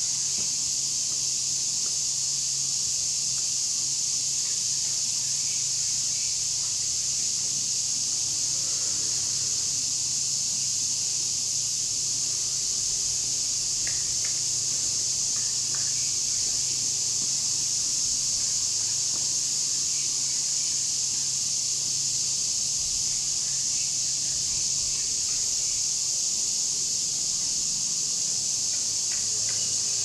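Steady insect chorus, an even high-pitched buzz that holds without a break, with a faint low hum underneath.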